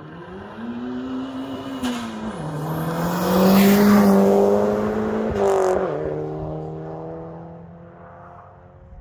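Hillclimb race car accelerating hard and passing close by, its engine changing up a gear about two and a half seconds in and again about six seconds in. Loudest as it goes by around four seconds in, then fading as it pulls away.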